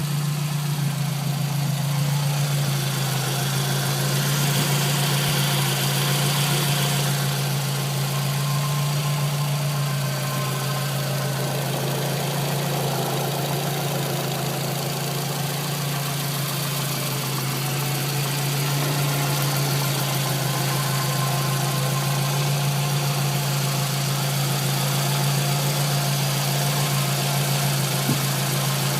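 Scion tC four-cylinder engine idling steadily with a freshly installed water pump; no scraping or scratchy noise from the pump bearing.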